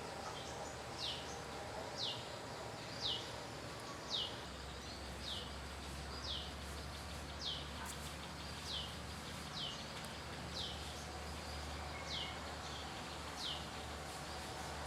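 A bird repeating a short, high call that slides downward in pitch, about once a second and very evenly spaced, over faint outdoor background noise.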